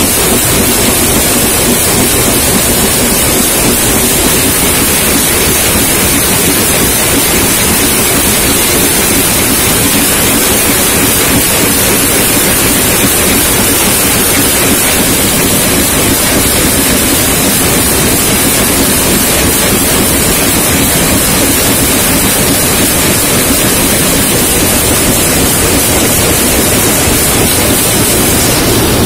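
Can-body trimming machine on a can-making line running with steady, loud mechanical noise: a high hiss over a lower hum, unchanging throughout.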